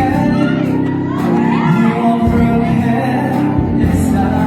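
Music with a singing voice: a sung melody over sustained accompaniment.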